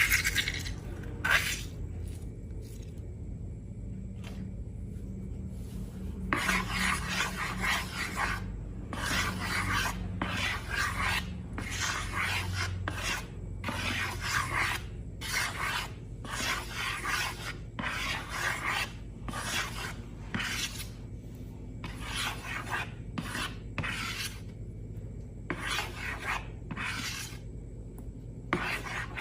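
Repeated rough rasping strokes from slime-making materials being scraped and rubbed by hand, each stroke about a second long, coming about once a second after a sparse first few seconds.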